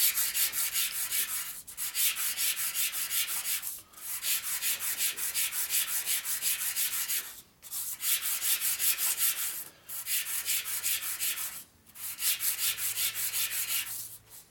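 Knucklehead engine's outer cover being hand-lapped flat on worn 220-grit sandpaper stuck to a flat table: quick back-and-forth scraping strokes, several a second, in runs of about two seconds with brief pauses between. The face is being ground down where it stands high on its outside edges.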